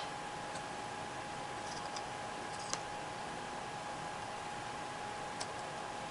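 A few sharp, irregular clicks and taps of jigsaw puzzle pieces being handled and set into place. The loudest click comes right at the start, another about halfway and one more later, all over a steady hiss and a faint steady tone.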